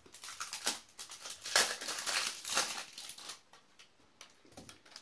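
Small plastic toy wrapper crinkling and rustling as it is handled and snipped open with scissors. The rustling comes in a run of short strokes through the first few seconds, loudest in the middle, and dies down to a few faint ticks near the end.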